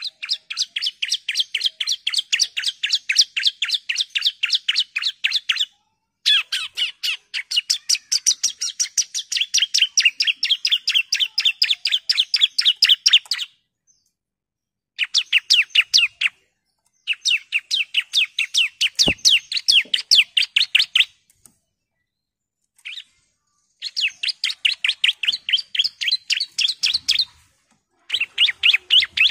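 Bar-winged prinia (ciblek) calling in long rapid trills of sharp, evenly repeated notes, about eight a second. The runs last several seconds each, with short pauses between them.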